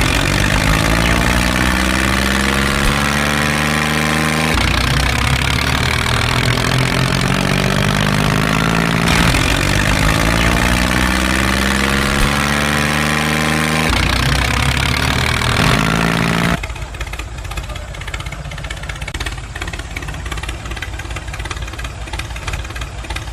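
Tractor engine running and revving, in repeating stretches of about four and a half seconds that restart abruptly. About two-thirds of the way through it gives way to a quieter rattling noise.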